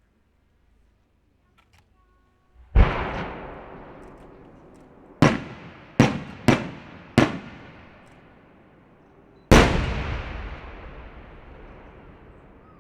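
Aerial firework shells bursting. A heavy boom comes about three seconds in, four sharper reports follow over the next few seconds, and another heavy boom comes near ten seconds in, each fading in a long echo.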